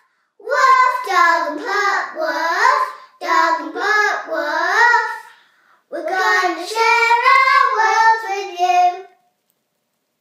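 Two young girls singing unaccompanied in three short phrases, stopping about nine seconds in.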